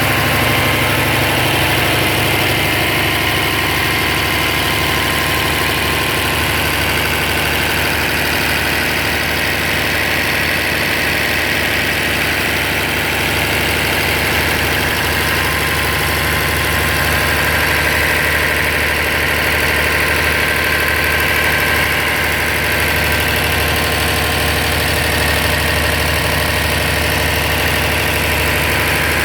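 Cummins engine idling steadily.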